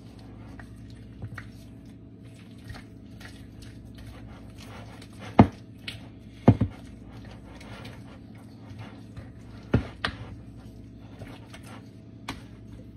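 A spatula stirring a thick cream-cheese mixture in a glass mixing bowl, with a few sharp knocks of the spatula against the glass, the loudest in the middle of the stretch, over a faint steady hum.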